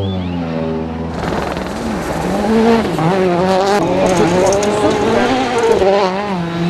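Citroën DS3 WRC rally car's 1.6-litre turbocharged four-cylinder engine. It runs low and fairly steady for about a second, then at full attack on gravel, revs rising and falling over and over between gear changes and lifts, with the hiss of tyres and thrown gravel.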